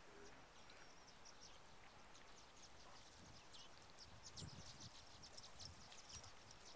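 Faint, many short high chirps and twitters of small birds, scattered through a quiet outdoor hush.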